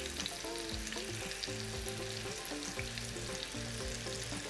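Flour-coated hake pieces shallow-frying in hot refined oil in a frying pan: a steady crackling sizzle. Quiet background music plays underneath.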